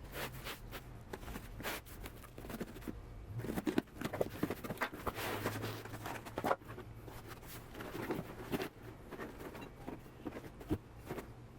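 Hands handling objects and packaging: irregular clicks, knocks and scrapes over rustling, busiest in the middle stretch.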